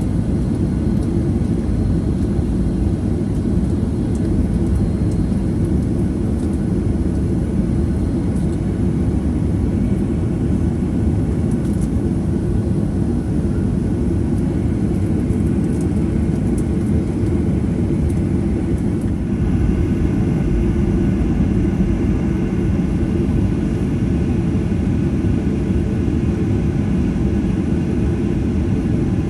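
Boeing 737-800 with CFM56-7B engines taxiing: a steady low rumble. A faint higher hiss lifts slightly about twenty seconds in.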